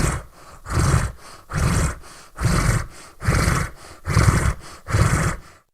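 Designed demon-creature sound effect: deep, raspy growling breaths, seven harsh growls in a steady rhythm a little under a second apart, stopping abruptly near the end.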